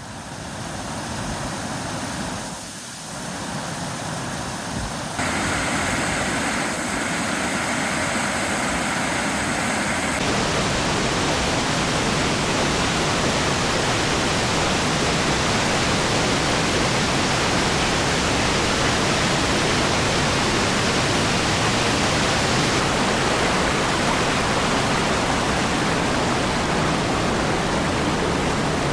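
Waterfall rushing: a steady wash of falling water that steps up abruptly in loudness about five seconds in and changes again about ten seconds in.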